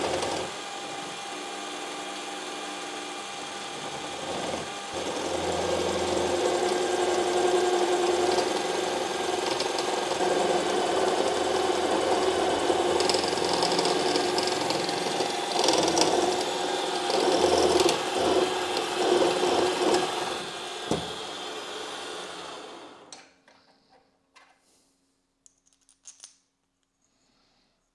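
Benchtop drill press running steadily, drilling test holes in an aluminium profile, louder and uneven while the bit cuts. The motor stops about five seconds before the end, followed by a few faint handling clicks.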